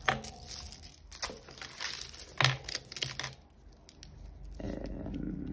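Metal costume jewellery (bangles, chains and beads) clinking and rattling together as a hand rummages through a box of it. The clinks are busiest for the first three seconds or so, then die down.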